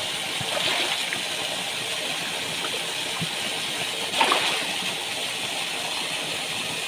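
Steady rush of churning water in a fish pond, with Nile tilapia splashing at the surface and a louder flurry of splashes about four seconds in.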